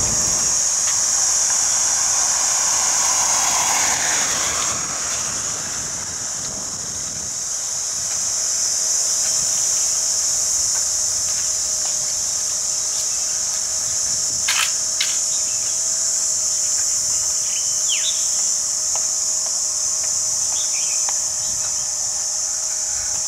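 A steady, high-pitched drone of insects, with a few short chirps near the end.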